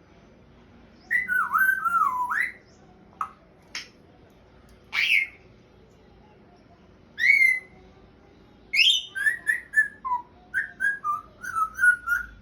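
African grey parrot whistling: a warbling run of gliding whistle notes, then a few clicks and short rising calls, and a quick series of short whistled notes near the end.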